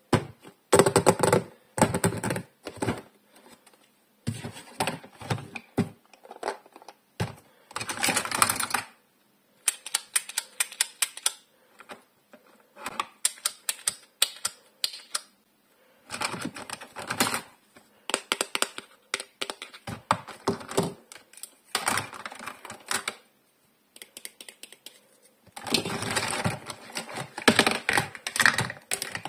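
Hard plastic clicking, tapping and rattling as hands open a clear plastic box and handle the plastic pieces of a toy doctor set. The sound comes in bunches of quick clicks a few seconds long, with short pauses between them.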